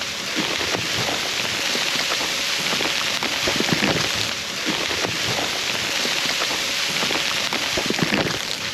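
Sleet and rain hitting a tarp shelter: a steady hiss full of small, irregular ticks of ice.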